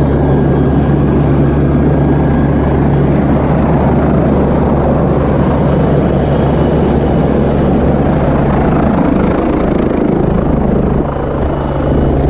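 Helicopter running steadily and loudly, with a constant low rotor and engine drone under a thick rush of noise; it eases slightly near the end.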